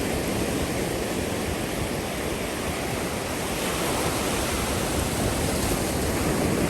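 Ocean surf washing on the beach: a steady rushing noise that swells a little near the end.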